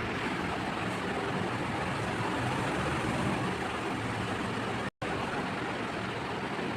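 Steady background noise, road traffic in character, with a low hum; it cuts out for an instant about five seconds in.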